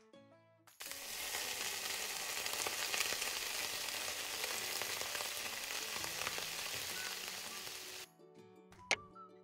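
A piece of seasoned chicken breast sizzling in hot oil in a miniature wok, a dense steady hiss that starts suddenly about a second in and cuts off abruptly near the end. Light music follows, with one sharp click.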